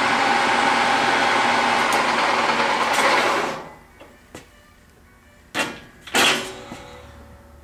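Kent 13x40 gap lathe's geared headstock running at a spindle speed of 1280 rpm with a steady whine, then stopping about three and a half seconds in. Two short clunks come near the end.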